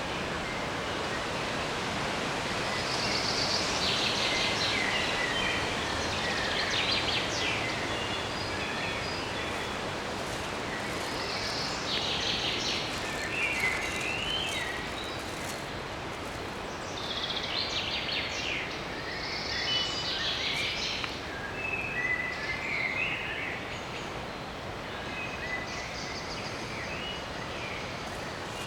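Forest ambience: songbirds singing short phrases every few seconds over a steady rustling hiss.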